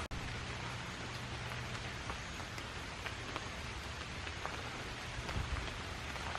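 Steady hiss of rain falling on forest leaves, with a few faint drip-like ticks.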